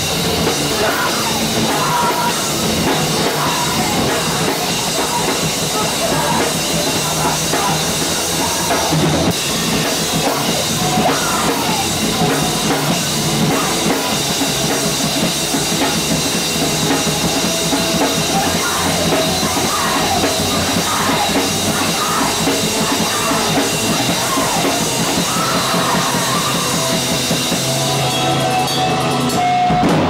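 Live rock band playing loud, with a pounding drum kit and electric guitars. Near the end the cymbals drop out, leaving strummed guitar.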